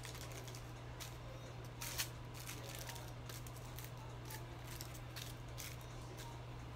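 Irregular light clicks and crinkles from hands working aluminium hair foils and a phone's physical keypad, with one sharper click about two seconds in, over a steady low hum.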